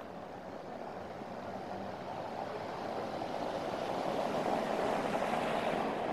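Road traffic noise: an even rushing hum that grows steadily louder.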